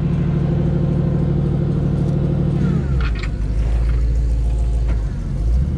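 Tow truck's engine running steadily at raised speed. About three seconds in it drops to a low idle, then picks back up near the end. A few light clicks come as it drops.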